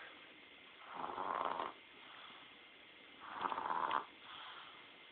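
A sleeping baby snoring loudly: two snores about two and a half seconds apart, each under a second long, with a quieter breath between them.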